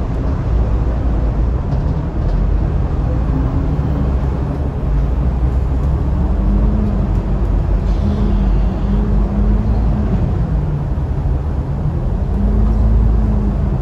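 Alexander Dennis Enviro500 MK2 double-decker bus's diesel engine heard from the lower deck, running at low speed as the bus manoeuvres slowly, its note rising and falling a little.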